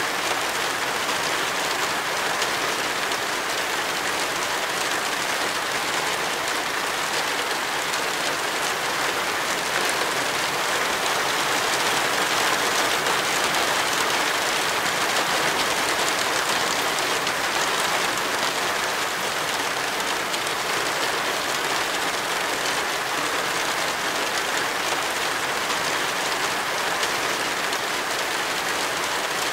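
Steady rain, an even unbroken hiss that swells slightly around the middle.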